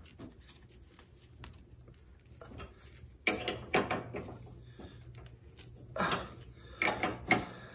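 Metal wrenches clinking and scraping on the tie rod nut at a lawn tractor's front spindle, in a few short irregular bursts, with the sharpest click about three seconds in.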